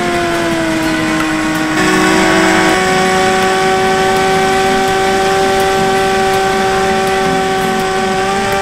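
The electric motor and propeller of a Bixler 3 RC plane in flight give a steady whine with a hiss of air, heard from a camera on board. The pitch sags a little in the first second, shifts and grows slightly louder about two seconds in, and then holds steady.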